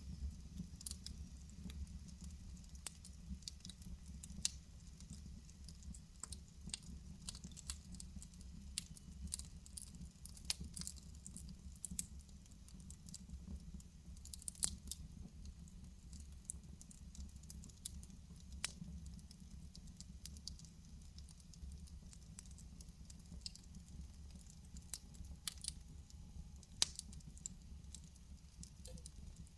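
Wood fire burning in a fireplace: a low steady rumble of the flames with frequent irregular crackles and pops, a few sharper snaps among them.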